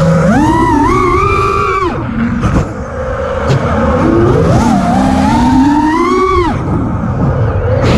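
Five-inch FPV quadcopter's brushless motors (2306 2450 kV, three-blade 5-inch props) whining in flight, the pitch rising and falling with the throttle: a high punch in the first two seconds, a sudden drop, then a slowly climbing whine that falls away sharply about six and a half seconds in. A low wind rumble runs underneath.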